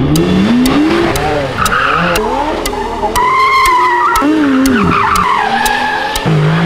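Quick succession of performance cars powersliding: engines revving up and down and tyres squealing as they break traction, with a sharp tick about twice a second.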